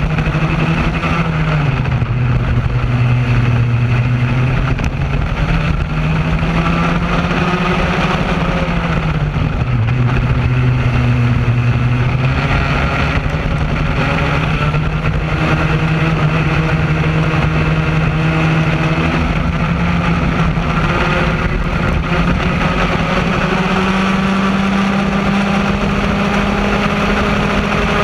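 Raket-class racing kart's two-stroke engine at race speed, heard from onboard. The engine note drops twice as the kart slows for corners, about two seconds in and again about ten seconds in, then climbs back and runs at its highest pitch near the end.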